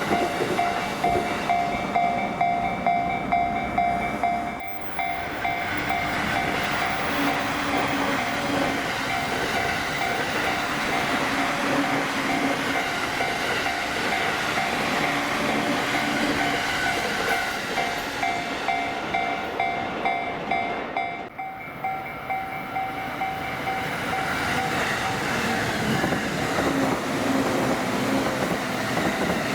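Japanese level-crossing warning bell ringing on and on as a steady repeating electronic ding, while electric commuter trains run through the crossing with their wheels clacking over the rail joints.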